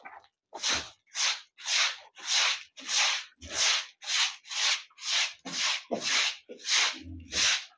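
Stiff straw broom sweeping a wet concrete floor, swept stroke after stroke in a steady rhythm of about two strokes a second.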